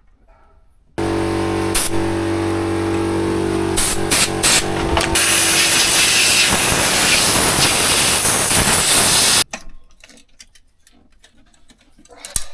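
A motor-driven machine starts abruptly with a steady pitched hum; about four seconds later a loud spraying hiss joins it, and both cut off suddenly.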